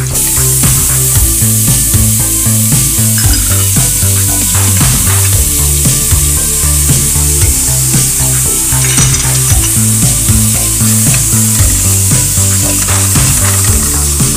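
Sliced onions and vegetables sizzling as they fry in oil in an aluminium pot, with a spoon stirring and now and then knocking against the pot.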